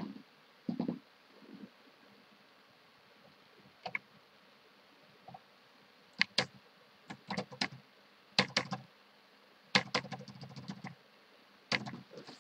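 Computer keyboard keys and mouse buttons clicking in several quick clusters, mostly in the second half.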